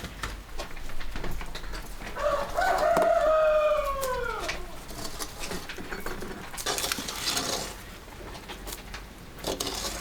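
A rooster crowing once, about two seconds in: one long call that rises and then falls away.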